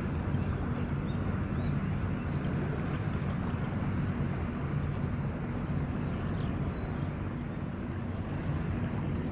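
Steady low drone of boat engines with wind and water-rush noise, as a high-speed catamaran ferry runs past.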